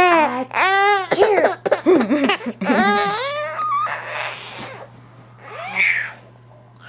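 Baby laughing in high-pitched squeals and choppy giggles, several bursts over the first four seconds, then trailing off into softer breathy sounds.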